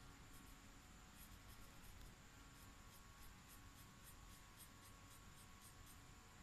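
Faint, quick scratching of a red felt-tip marker on paper as it colours in a shape with short back-and-forth strokes, about four a second.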